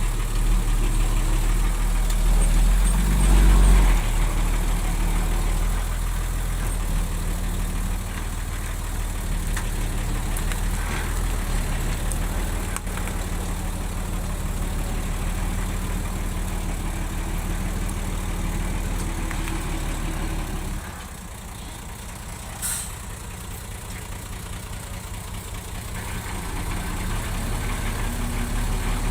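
Heavy earthmoving machine's diesel engine running steadily, louder for a moment about three seconds in. About two-thirds of the way through the engine drops quieter, a single sharp clank sounds, and then the engine builds back up near the end.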